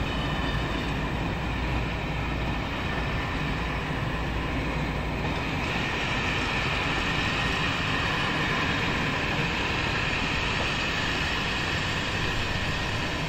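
A train running along the track, a steady mix of running and rail noise with no words. The noise turns brighter and hissier about five seconds in, as the deepest part of the sound falls away.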